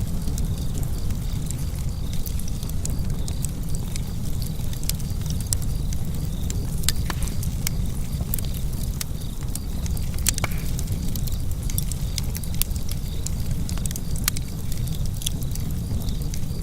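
Wood fire burning in a fireplace, with a steady low rumble under frequent sharp crackles and pops, a few of them louder.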